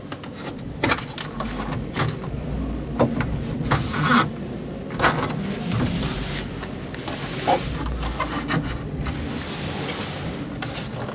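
Hard plastic under-bunk storage drawer being tugged and worked by hand, with a string of irregular knocks and clicks over scraping and rubbing; the drawer is stiff to pull out, being brand new.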